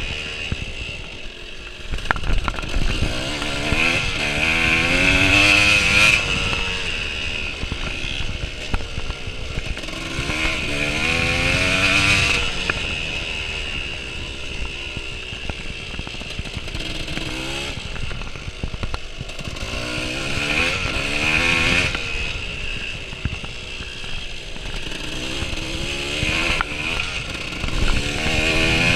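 Off-road motorcycle engine heard from on board while riding, its revs climbing and dropping about four times as the throttle is opened and shut.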